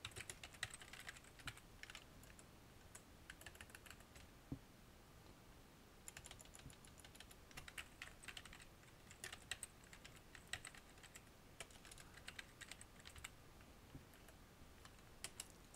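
Faint typing on a computer keyboard: quick runs of keystrokes in bursts, with a pause of about two seconds a little way in.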